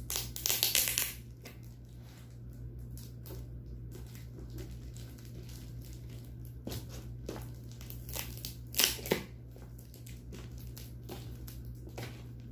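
Scissors snipping and scraping through packing tape and plastic wrapping on a parcel, with crinkling and tearing of the plastic. Two louder ripping bursts stand out, one near the start and one about nine seconds in.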